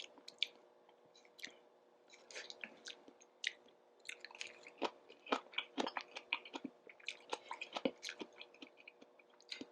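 Close-miked chewing of stir-fried kimchi, with many small wet crunches and mouth clicks, sparse at first and coming thick and fast from about two seconds in.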